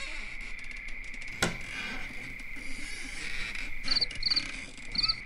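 Crickets chirping in a steady night chorus, with four short, louder chirps near the end and a single sharp knock about a second and a half in.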